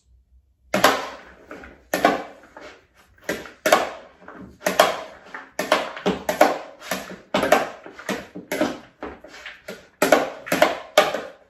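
Dressed puntarelle salad being tossed in a large ceramic bowl with a spoon and hand, a quick stroke about twice a second at an uneven beat.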